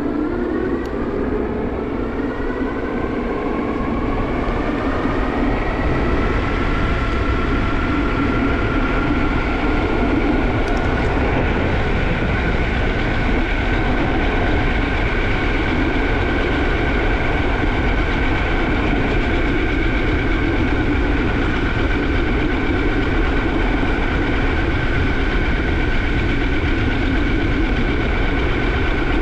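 Electric hub motor of a Juiced HyperScrambler 2 e-bike whining as the bike picks up speed. The pitch rises over the first few seconds, then holds steady at cruising speed over a constant low rumble of wind and road noise.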